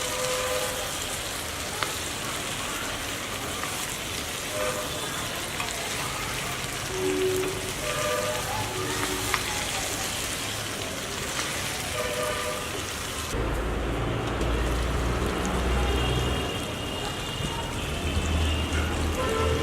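Chicken sizzling as it fries in a pan, a steady hiss, with short melodic notes of background music over it. About thirteen seconds in, the hiss turns duller and a low rumble comes up.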